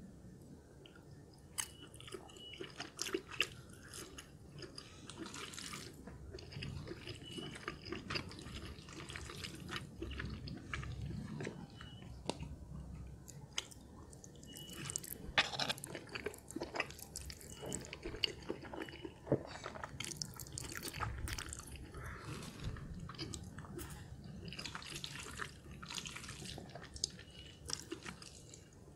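Close-miked wet chewing of cheesy, creamy instant noodles and fried egg, with scattered small clicks of chopsticks against a glass dish.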